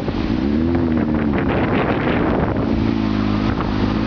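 Honda CBR600F4i inline-four engine running under wind rush on the microphone. The engine note rises slightly, holds steady, fades for about a second midway, then comes back.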